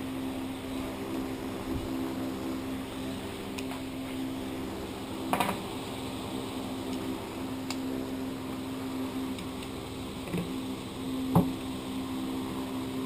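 Steady machine hum in the background, with a few sharp clinks of hand tools and sockets handled on a workbench; the loudest come about five and a half and eleven and a half seconds in.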